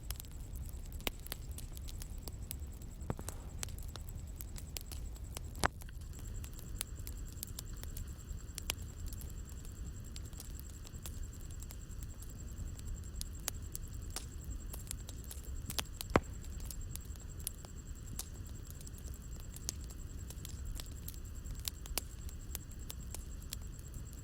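Wood bonfire crackling and popping: irregular sharp snaps over the low, steady rumble of the fire, with two louder pops about six and sixteen seconds in.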